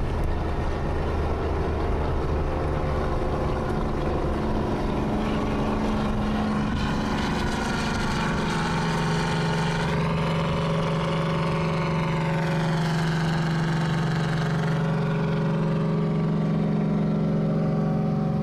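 Straight-piped Detroit Diesel 12V71 two-stroke V12 in a loaded 1975 Peterbilt, running hard through dual 6-inch straight stacks, heard from inside a car alongside. Its note shifts in pitch partway through, then settles into a steady low drone over the last few seconds.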